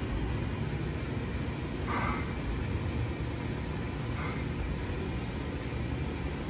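CNC lathe running a thread-cutting cycle: a steady low machine hum, with a short hiss twice, about two seconds apart, as threading passes cut.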